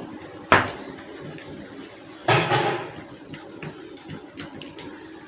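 Plastic housing of an electric drilling machine being handled and closed up during reassembly: a sharp knock about half a second in, a louder clatter just after two seconds, and small clicks of parts and screws between.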